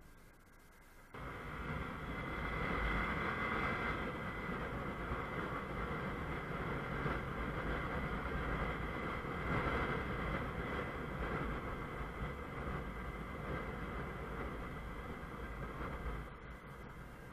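Riding noise from a Honda CBF 125 motorcycle on the move: a dense, steady rush of wind, engine and road noise. It comes in suddenly about a second in and eases a little near the end.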